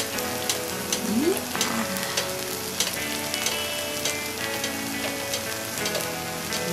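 French toast frying on an electric hot plate: a steady sizzle with frequent sharp crackles and pops.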